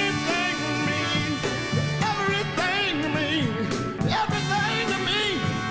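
A band playing with a man singing lead into a microphone.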